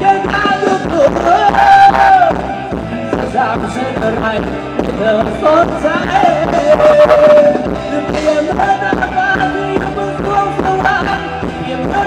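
Band music for ramwong (Thai circle dance), with a singer's melody over a steady beat.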